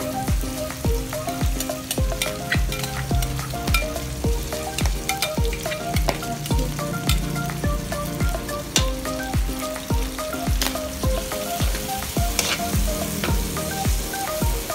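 Garlic, onion and pork bits sizzling in an aluminium wok, with a metal spatula scraping and clicking against the pan as they are stirred. Background music with a steady beat and a melody plays throughout.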